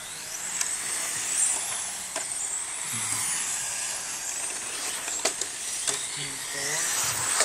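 Radio-controlled race trucks lapping a track, a high-pitched motor and drivetrain whine that rises and falls in pitch as they pass, with a few sharp clicks.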